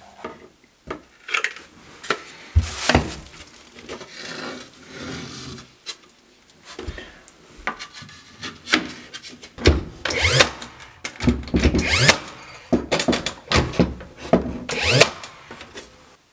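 Cedar boards being handled and slid against each other and the floor, giving irregular bouts of wooden scraping and rubbing with short squeaks, busiest in the second half.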